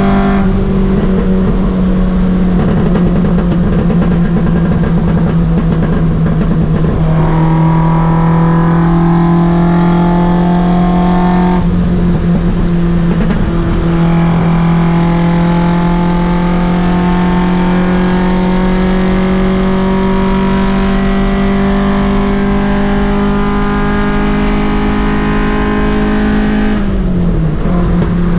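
Toyota 4A-GE four-cylinder engine breathing through side-draft carburetors, running loud at a high, held engine speed that creeps slowly upward, then drops away near the end.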